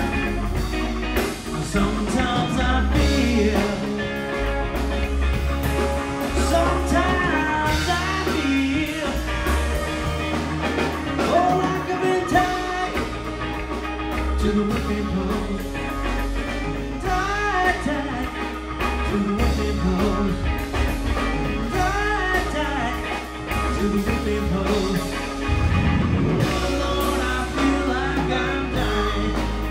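Live blues-rock band playing: electric guitar, bass, keyboard and drum kit, with guitar lines bending in pitch over a steady bass and drum groove.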